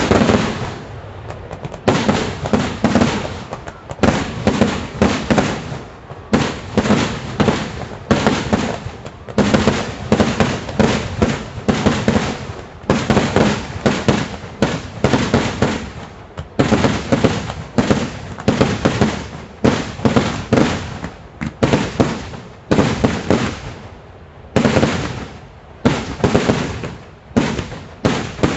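Kerala temple fireworks: rapid volleys of loud firecracker bangs in dense strings, each string lasting a second or a few seconds, with short lulls between them.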